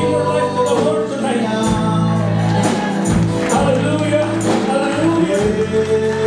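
Live gospel worship music: a band with drums and electric guitar plays a steady beat while a voice holds long sung notes.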